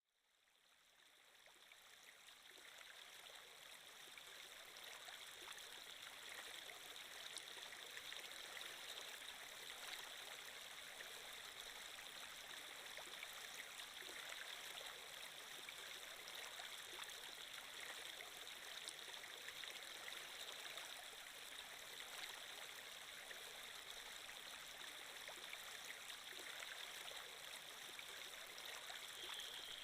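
Steady flowing-water ambience, a stream sound effect, fading in over the first few seconds and then running evenly.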